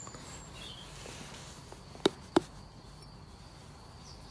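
Two light clicks of a small drinking glass being handled and tipped over a palm, about halfway through and a third of a second apart.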